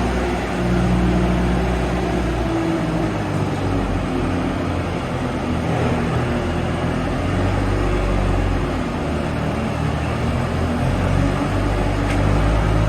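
Bobcat A300 skid steer's diesel engine running, its speed shifting up and down every few seconds, over a steady wash of machine noise.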